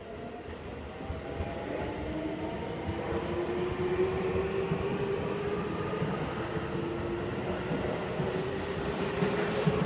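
Seibu 20000 series electric train accelerating away from the platform. Its inverter-driven traction motors whine in several tones that climb steadily in pitch, over wheel and rail rumble that grows louder as it gathers speed.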